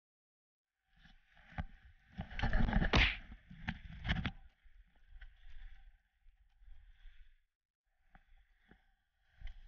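Outdoor ambience after about a second of silence: wind buffeting the microphone with scattered knocks, loudest between about two and four and a half seconds in, then fading to faint gusts.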